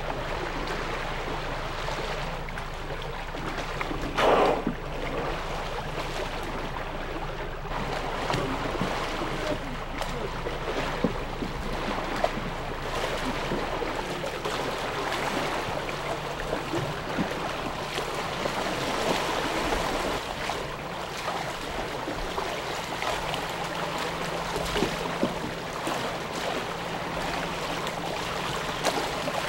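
Water splashing and churning around a canoe's hull and paddles as an orca rolls against the side of the canoe. A short, loud burst of noise comes about four seconds in.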